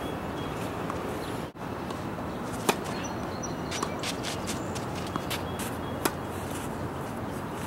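Tennis serve: a single sharp crack of racket on ball about six seconds in. Before it, a sharper knock about two and a half seconds in and a run of light ticks and scuffs, over a steady hiss.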